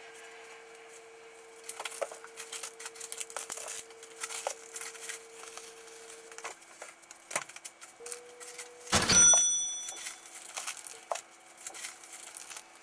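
Groceries being unpacked onto a kitchen counter: plastic bags and food packs rustling and being set down with light knocks. About nine seconds in comes a louder rustle and clatter that leaves a brief ringing tone. A faint steady hum sits underneath.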